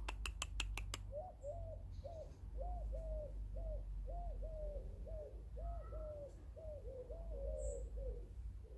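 Pigeon cooing: a long run of short coos, about two a second. A quick series of about six clicks comes just before the cooing begins.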